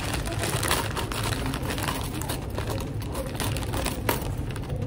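Close rustling and crackling of hands working the hair of a lace wig on a wig head, stopping shortly before the end, over a steady low hum.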